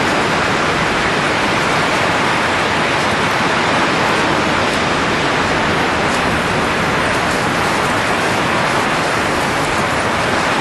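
Steady rushing hiss of blowing air, even in level and unchanging throughout.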